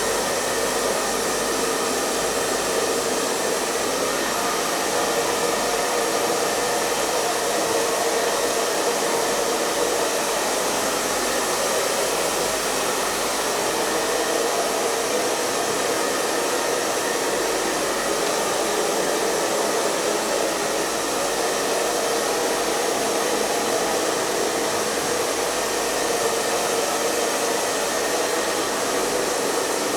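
Hair dryer blowing steadily on one setting: an even rush of air over the hum of its motor, with no change in pitch or level.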